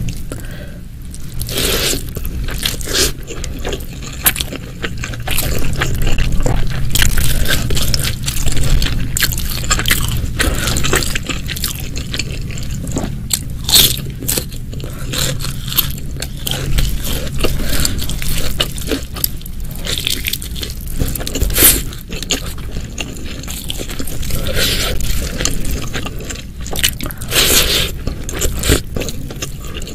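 Close-miked eating sounds: irregular bites, crunches and chewing.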